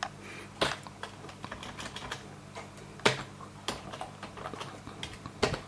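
Typing on a computer keyboard: irregular keystrokes, a few struck harder than the rest, as a command is entered at a router's command line.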